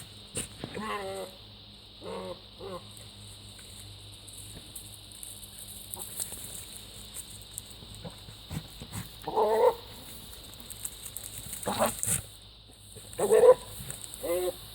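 A goat making a series of short, odd pitched calls, spaced irregularly, the loudest one near the end.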